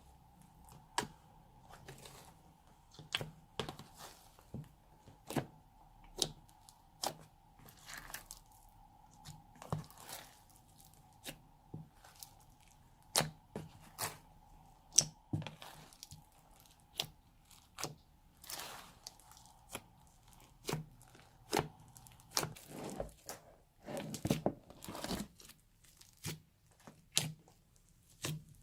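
Old slime being mixed and squished by hand, giving irregular sharp pops, crackles and tearing sounds about once or twice a second, with a faint steady hum underneath that drops out near the end.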